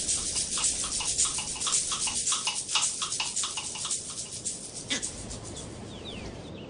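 Rapid rhythmic animal calling, about four pulses a second, dying away after about four to five seconds. A few short sliding bird chirps come near the end.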